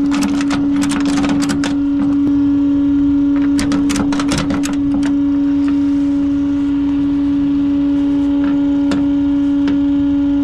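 Ratchet tie-down straps clicking and rattling in two bursts of quick clicks as they are handled on a flatbed tow truck's aluminium deck, one at the start and another about four seconds in. A loud steady hum from the running tow truck continues underneath.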